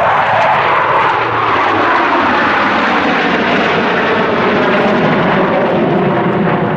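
Blue Angels F/A-18 Hornet jets flying past, a loud jet roar whose pitch falls over the first couple of seconds as they go by, then a steady roar.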